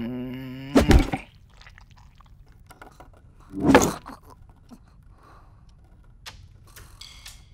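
Dozing students snoring. A pitched snore of just under a second ends in a sharp snort, and a louder, rougher snore comes about three and a half seconds in. Faint light clicks follow near the end.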